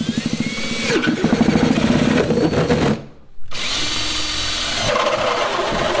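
Cordless drill boring holes through a plastic kayak hull: two runs of drilling with a short break about three seconds in, the motor whirring up in pitch as each run starts.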